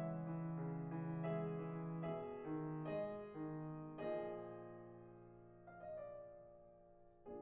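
Slow, soft solo piano background music: single notes and chords struck and left to ring, growing sparser and quieter in the second half.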